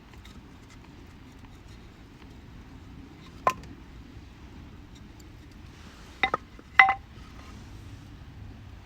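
Campfire burning with a low steady rush and faint scattered crackles. There is a sharp clack about a third of the way in, then three more close together about two-thirds in, the last the loudest, as the firewood pops and shifts.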